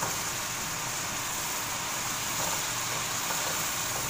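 Chopped onions sizzling steadily as they fry in a panful of hot oil, being stirred with a spatula.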